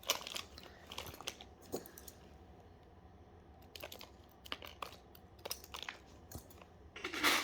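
Small twisted-pair wires of a network cable being handled and pressed flat between the fingers: scattered light crinkling and clicking, with a louder crunch near the end.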